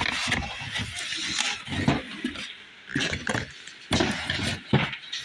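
Packaging being handled and rustled, in irregular crinkling bursts with a few soft bumps.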